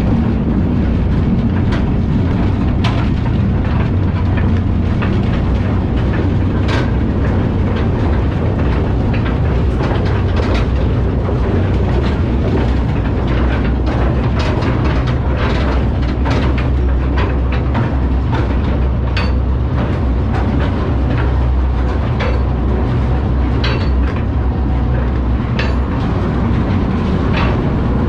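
Coal mine trolley train running on its rails: a steady, loud low rumble with irregular clicks and clanks from the wheels and cars, and a few brief high squeals.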